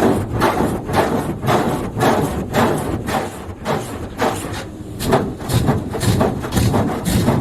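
In-bay automatic car wash spraying the car, heard from inside, as water beats on the body in regular pulses about two or three times a second.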